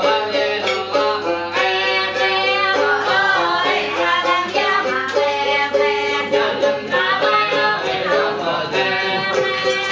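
Live folk music: singing over a plucked string instrument that plays a short repeating figure.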